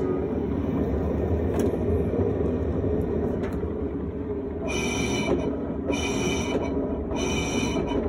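Electrolux LF10 Turbo Limpeza top-load washing machine running with a steady low rumble. About halfway in, a high squeal starts and repeats about once a second.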